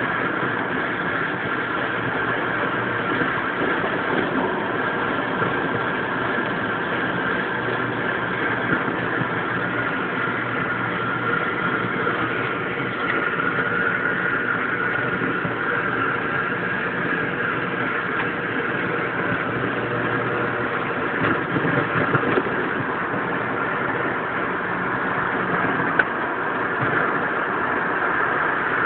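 AM radio static and interference: a steady hiss and buzz with faint whining tones, and a single click about 26 seconds in.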